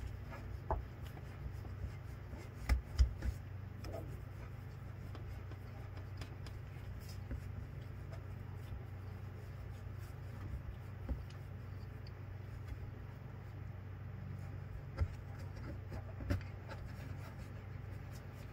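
A hand unscrewing the loosened belt tensioner's lower bolt by hand in the engine bay: faint rubbing and small scattered clicks of fingers and bolt against metal. A few sharper knocks come about three seconds in and twice near the end, over a steady low hum.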